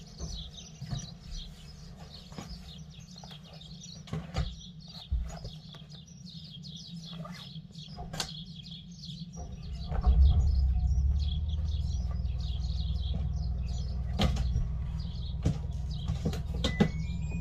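Birds chirping over a few door knocks and clicks, then about ten seconds in the mobile grooming van's engine starts up and runs steadily with a low, even hum.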